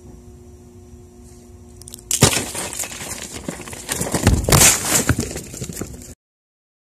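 A wooden-framed, netted drop trap falls shut over feeding cats with a sudden clatter about two seconds in. Several seconds of loud rattling and scuffling follow, and then the sound cuts off abruptly.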